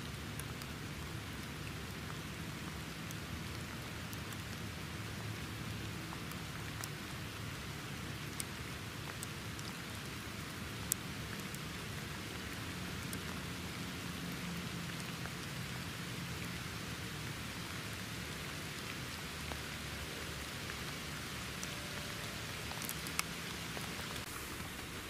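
Steady rain falling, with a few sharper single drop ticks.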